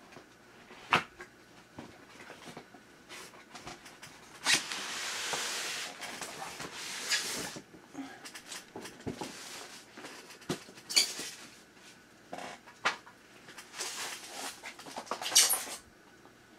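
Box packing being handled as a model locomotive is unpacked: scattered clicks and knocks with several rustling, scraping stretches, the longest starting about four and a half seconds in and lasting about three seconds.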